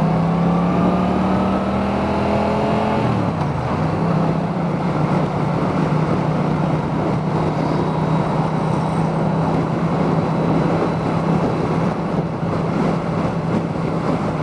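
Yamaha MT-07's parallel-twin engine pulling under acceleration, its note rising, then dropping on an upshift about three seconds in and running steady, with wind and road rush, heard from a microphone inside a full-face helmet.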